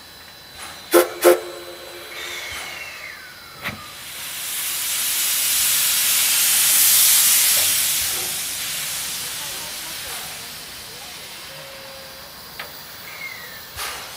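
C11 steam tank locomotive blowing off steam: a loud hiss that swells over a few seconds and then fades. About a second in come two sharp metallic clanks that ring briefly.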